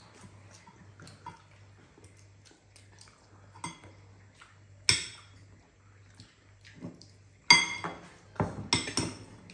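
Metal spoons and a fork clinking and scraping against bowls as food is scooped up. A few sharp clinks are spread through it, with the loudest cluster near the end.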